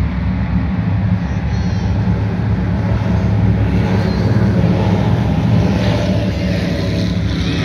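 Engines of a high-performance powerboat running at speed as it passes across the water: a steady low rumble that swells about halfway through and eases off near the end.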